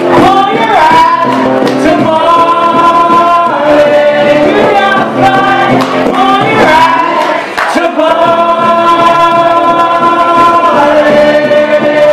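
Live acoustic duo: a woman and a man singing together over acoustic guitar, holding long sustained notes twice.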